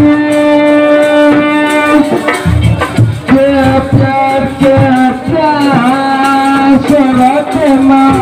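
Live jaranan gamelan music: a long held, wavering melody line over kendang drum strokes.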